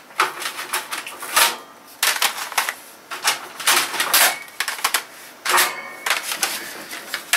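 Plastic CD cases and discs being rummaged through and handled: irregular runs of sharp clicks and clattering knocks, in several bunches with short pauses between.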